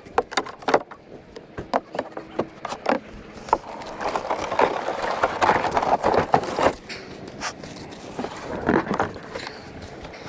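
Handling noise of gear being set up: a run of knocks and clicks, then a few seconds of scraping about four seconds in.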